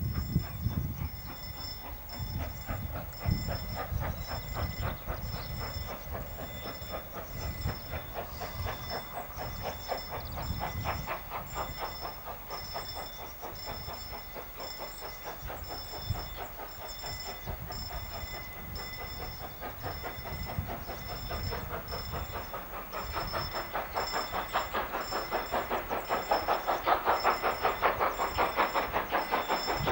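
Two-cylinder DR class 52 steam locomotive 52 8200-9 approaching while working hard, hauling a freight train on a load test run. Its exhaust chuffs are rapid and even, with steam hiss, and grow louder over the last few seconds as it draws near.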